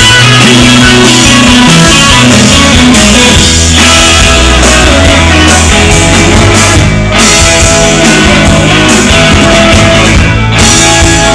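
Live rock band playing loud through the PA: electric guitars, bass guitar and drum kit.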